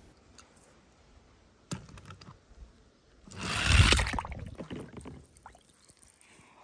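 A toy car knocks once onto a plastic slide, then about three seconds in splashes into a small pool of water full of plastic balls, the water sloshing briefly as it settles.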